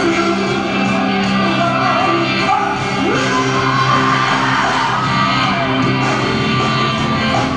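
Live rock band performance: electric guitars and drums playing under a male singer's vocals.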